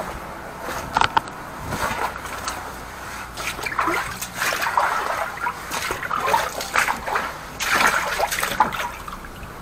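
Water gushing and splashing out in irregular surges from a drain line that a high-pressure jetter has just unblocked.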